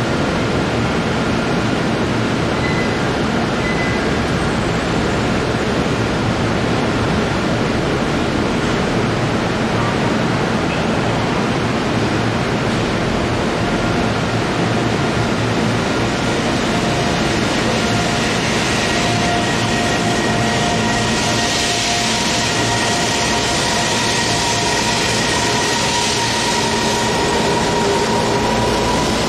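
JR EV-E301 ACCUM battery-electric train pulling away: from about halfway its traction motors and inverter give a few steady whining tones that creep slightly higher as it gathers speed, and a rushing hiss swells as the cars pass close. Loud, steady station and train equipment noise runs underneath.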